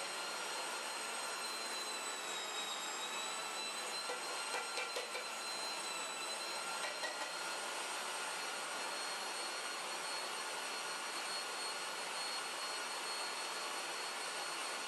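Electric meat grinder running steadily, its motor giving a high whine over a rushing hum as it grinds meat through a coarse plate. The pitch sags briefly about two to three seconds in, and there are a few faint ticks later on.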